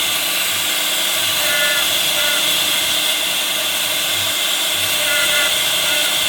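CNC router spindle running steadily while cutting wood, giving a constant high-pitched hiss with no pauses.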